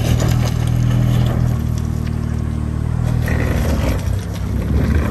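Truck engine running steadily at low revs, with some scraping and clattering on top.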